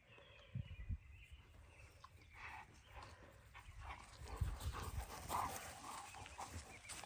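Dog moving about, with soft low thumps about half a second in and again around four to five seconds in, and faint dog sounds.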